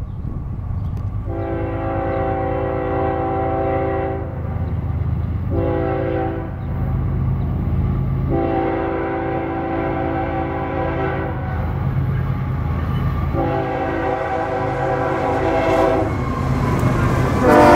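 Multi-note air horn of an approaching BNSF ES44C4 diesel locomotive sounding four blasts, the second one short, over the low rumble of its GEVO V12 diesel engine. The rumble grows louder as the locomotive nears, and is loudest as it passes close near the end.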